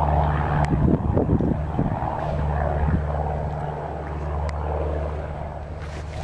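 Light propeller plane's piston engine droning steadily, with wind gusting on the microphone; the engine sound eases off gradually near the end.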